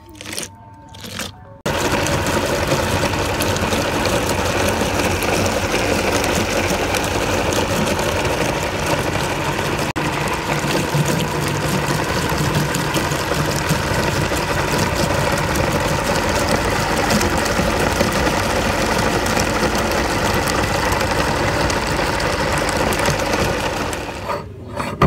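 A #32 cast-iron meat grinder working steadily as it grinds chicken feet, bone and all. It starts up about two seconds in after a brief lull and stops just before the end.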